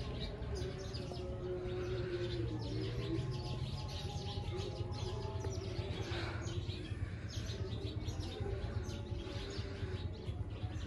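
Birds chirping and calling, many short chirps one after another, with a lower wavering tone underneath.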